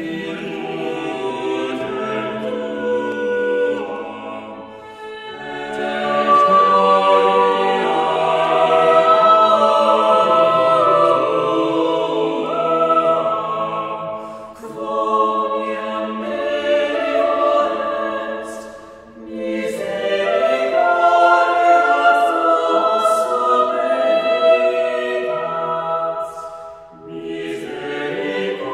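Choir singing in a church, heard through a multichannel 3D microphone recording mixed down to two channels, with all 11 channels combined. It comes in several long phrases with short breaks between them.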